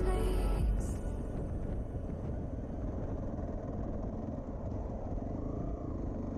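Onboard sound of a Zontes T310 T2X motorcycle riding at road speed: its single-cylinder engine running steadily under a rush of wind and road noise. Background music cuts out about a second in.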